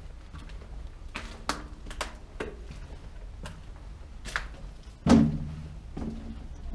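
A run of irregular knocks and thuds, about eight in all, the loudest about five seconds in, over a low steady rumble.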